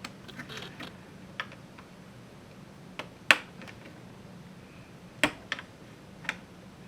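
Scattered small plastic clicks and snaps, loudest about three seconds in, as pieces of a car navigation unit's housing are pried and unclipped.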